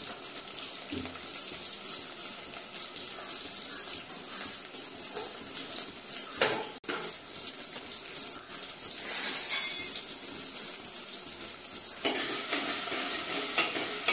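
Chopped shallots, green chillies and ginger sizzling in hot oil in a clay pot, a steady hiss. Near the end a metal spoon stirs them and the sizzle gets louder.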